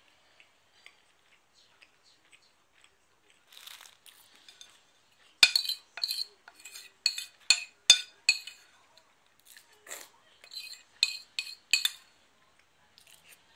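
Tableware clinking: a quick series of sharp clicks and clinks, about two a second, in two runs with a short pause in the middle, as dishes and utensils are handled on a table.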